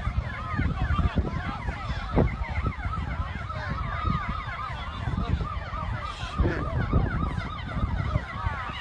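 Several emergency vehicle sirens wailing fast at once, their short rising-and-falling tones overlapping, over a loud, uneven low rumble.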